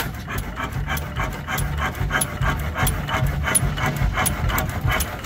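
Fairbanks-Morse stationary engine running and driving a water pump, with a quick, even clatter of several strokes a second over a low rumble that comes and goes.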